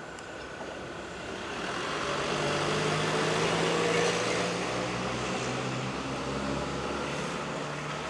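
A vehicle passing by, its engine or motor noise swelling to a peak about four seconds in and then easing off.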